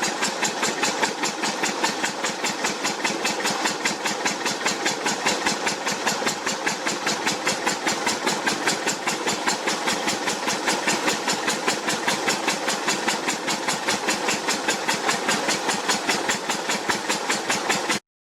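Water gushing with a steady, regular pulse about four to five times a second; the sound cuts out briefly near the end.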